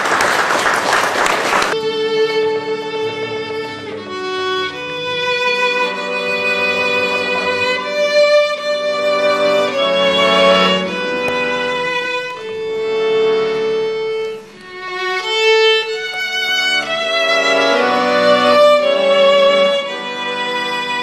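Applause for about the first two seconds, then a violin and accordion duo playing: the violin carries the melody with vibrato over held accordion notes.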